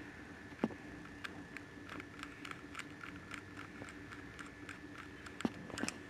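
Faint clicking of a small screwdriver turning a terminal screw in a three-pin mains plug, with two louder knocks, one about half a second in and one near the end, as the plug is handled.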